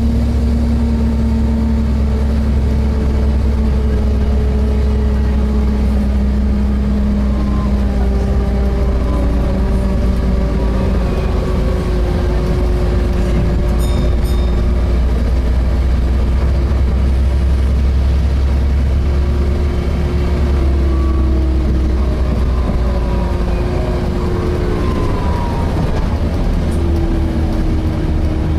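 Volvo B7TL double-decker bus running on the road, heard from inside: a steady low drone with several whining tones from the engine and cooling fan that slowly fall and rise in pitch.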